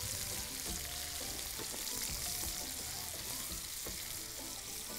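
Sliced onions sizzling in hot oil in an aluminium pan over a gas flame, stirred and turned with two wooden spoons, with occasional light clacks of the spoons against the pan.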